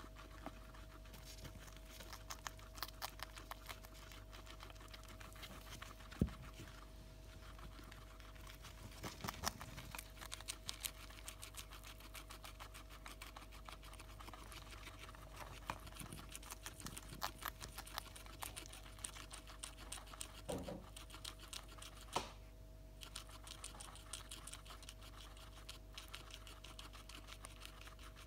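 Guinea pigs chewing fresh green beans and broccoli: a fast, continuous run of small crunching clicks, with a couple of louder knocks. A faint steady hum runs underneath.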